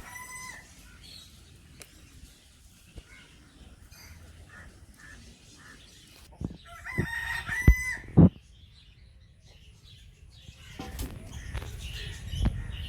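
Rooster crowing: the tail of one crow right at the start and a full crow about seven seconds in, followed by a couple of sharp knocks.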